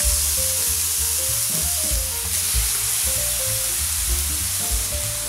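Two seasoned ribeye steaks sizzling steadily in a stainless-steel electric skillet preheated to 205 °C, just laid in to sear.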